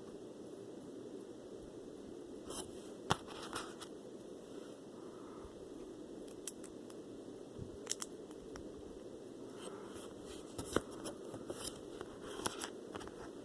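Small plastic building pieces being handled and pressed together, giving scattered sharp clicks and light scraping over a steady low background hum.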